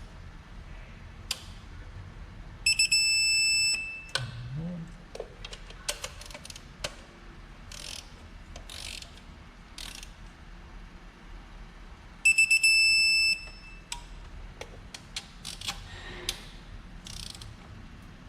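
Electronic torque wrench beeping steadily for about a second, twice, each beep signalling that an injector hold-down bolt has reached the set 20 ft-lb. Scattered clicks and taps of the tool in between.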